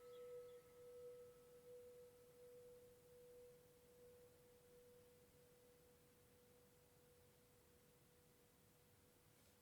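Quartz crystal singing bowl ringing out: one pure, steady note slowly fading toward silence. A fainter higher overtone dies away about two seconds in.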